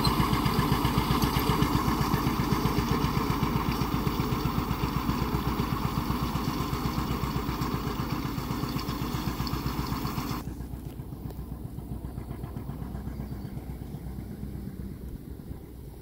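John Deere 720's two-cylinder engine running under load as the tractor pulls a hay rake, a steady pulsing beat that grows fainter as it moves away. About ten seconds in the sound turns suddenly duller.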